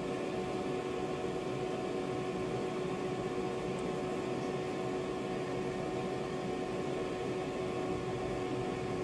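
Refrigeration trainer's evaporator fan running with a steady hum, holding two even tones. The compressor and outdoor unit are stopped in the off-cycle while the temperature controller waits for the evaporator to warm up to its cut-in point.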